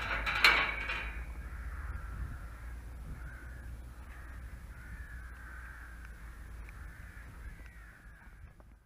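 Crows cawing, loudest in the first second, then fainter caws repeating about once a second as the sound fades out.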